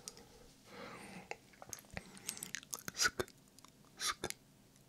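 Whispered ASMR 'sk sk' mouth sounds made right at a binaural microphone's ear: short hissing 'sk' bursts among wet tongue clicks and lip smacks. A soft breathy whisper about a second in, then a run of crisp clicks, with the loudest hissing bursts about three and four seconds in.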